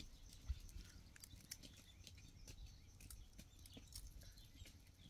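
Near silence: faint, scattered clicks over a low rumble, with a single soft knock about half a second in.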